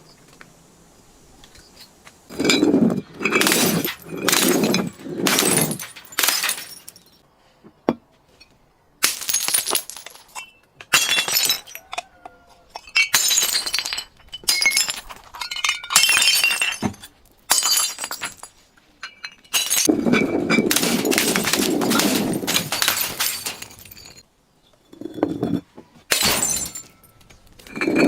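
Glass bottles being crushed and shattering, in a string of separate crunching bursts with clinking shards and a longer run of crunching about two-thirds of the way through.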